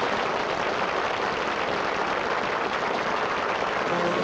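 Theatre audience applauding, a steady wash of clapping. Near the end, band music starts up over it.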